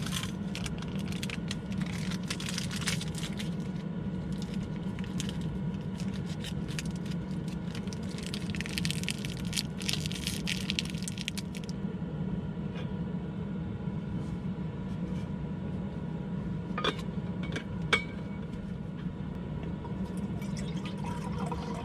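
Water splashing and trickling, as if being poured or run, over a steady low hum, with two sharp clicks near the end.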